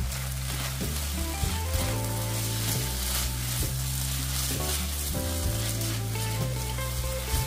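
Stir-fry sizzling in a hot oiled pan as it is stirred, with the steady hiss of frying throughout. Background music with a low bass line plays underneath.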